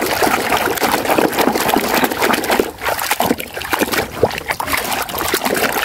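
Muddy, soapy water sloshing and splashing in a plastic basin as a hand scrubs a plastic toy gorilla under the surface: an uneven stream of small splashes and wet squelches.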